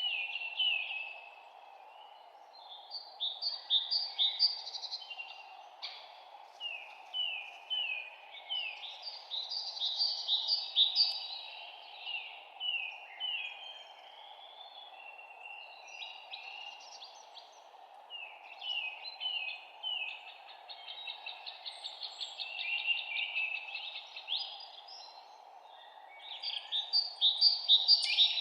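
Songbirds singing in a spring forest: bouts of quick, sweeping chirps and short trills every few seconds, over a steady faint background hiss.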